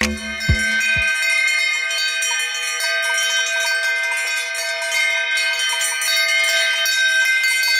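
Cowbells on grazing cattle ringing continuously, several bells jangling together into a steady chiming. The tail of electronic music stops about a second in.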